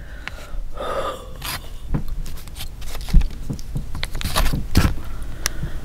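Plastic snack packet of konjac strips being handled: irregular crinkles and clicks, with a couple of dull thumps.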